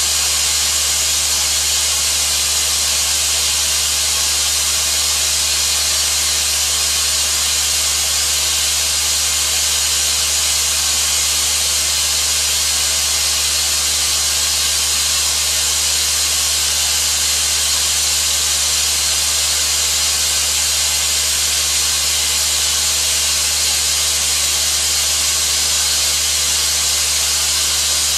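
Air-powered (pneumatic) explosion-proof Spillmaster 200 vacuum running steadily: a loud, even hiss of compressed air as the hose sucks up barley grass powder, with a steady low hum beneath.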